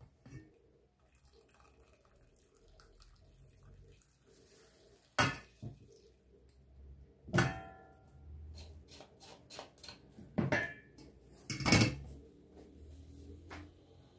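Kitchenware being handled: four sharp clanks of pots, dishes or utensils, two of them ringing briefly like metal, with lighter clicks and knocks between.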